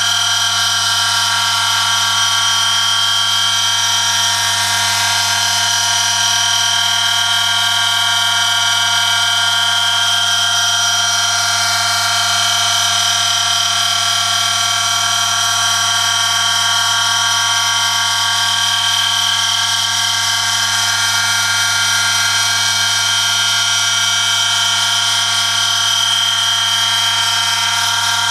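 Electric motor of a homemade oil friction tester running steadily while its spinning shaft rubs metal on metal against a test sample loaded by 1 kg through a lever arm, in Castrol Edge Turbo Diesel 5W-40 oil. It gives a loud, unchanging whine with several high tones over a low hum.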